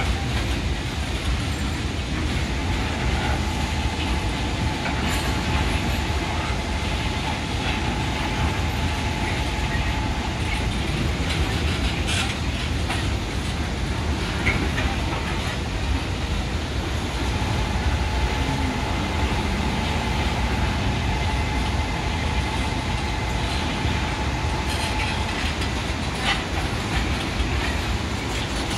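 Freight train of tank wagons rolling steadily past close by: a continuous rumble of wheels on rail, with scattered sharp clacks as wheels pass over rail joints. Twice a thin, steady wheel squeal rises over the rumble for several seconds.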